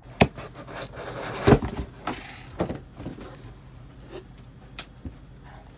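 Cardboard shipping box being opened by hand: flaps rubbed and pulled back with a rustle of plastic wrap, and a few sharp knocks, the loudest about a second and a half in.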